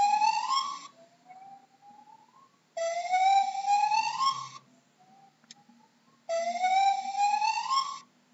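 Gibbon calling: three loud, long notes, each rising steadily in pitch, with fainter rising notes between them.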